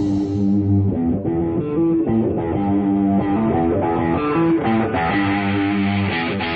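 Background music: an instrumental led by a guitar playing a melody of plucked notes.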